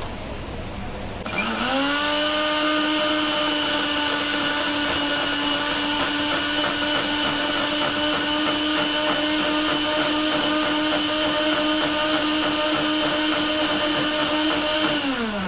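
Electric countertop jug blender blending a jug of lassi: the motor is switched on about a second in, spins up quickly to a steady pitch, runs evenly, and winds down with falling pitch near the end.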